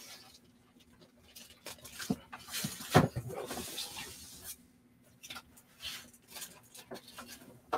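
Packaging being handled and unpacked: rustling and scraping with scattered clicks, the loudest a sharp knock about three seconds in, then a few faint taps.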